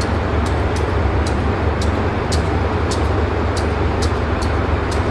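Diesel-electric locomotive's engine running steadily with a deep low hum, the train standing or barely moving at the platform. Light, sharp high ticks come about twice a second over it.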